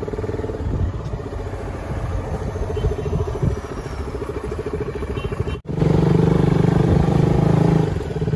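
Motorcycle engine running steadily while riding. The sound cuts out for a moment about five and a half seconds in, and the engine comes back louder.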